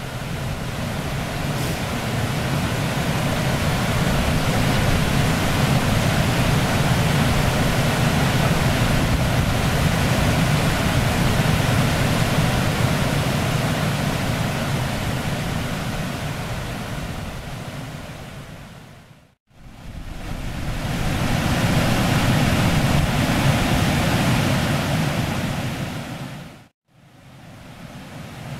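Steady rush of a shallow river running over stones, an even noise that fades out and back in twice.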